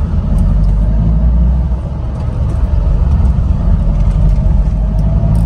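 Car cabin noise while driving: a steady low rumble of engine and road, with a faint whine that rises a little near the end.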